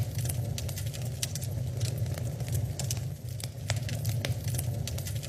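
Wood fire burning in a fireplace: irregular crackles and pops over a steady low rumble of the flames.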